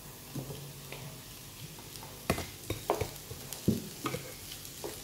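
Wooden spatula stirring mashed potato into fried onions in a non-stick frying pan, over a faint sizzle of hot oil. From about two seconds in, the spatula scrapes and knocks against the pan several times.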